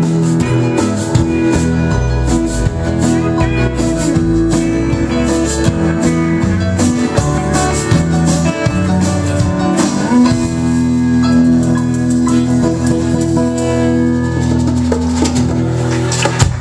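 Live band playing without vocals: guitars, electric bass and drum kit. About ten seconds in the band settles onto one long held chord over sparser drums, and a final sharp hit lands near the end.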